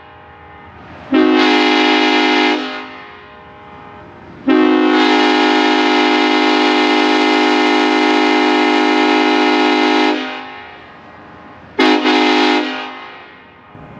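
Nathan K5LLA five-chime locomotive air horn, its bells all facing forward, blown in three blasts: a short one, a long one of about five seconds, then a short one. Each blast is a steady chord that starts sharply and trails off quickly when released.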